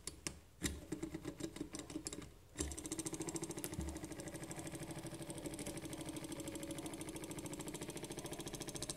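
Homemade laminar-flow Stirling engine being started by hand: a few irregular clicks and knocks at first, then about two and a half seconds in it catches and runs steadily with a fast, even ticking and a steady hum as its flywheel and propeller spin.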